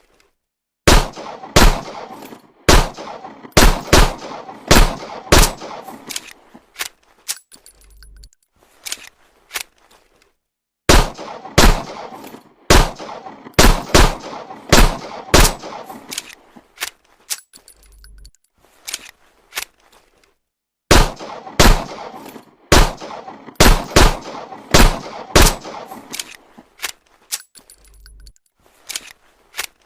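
Homemade imitation of M1911 pistol gunfire: about seven sharp cracks in quick succession, each with a short metallic ring. A brief low thud closes each run, and the same sequence repeats three times, about every ten seconds.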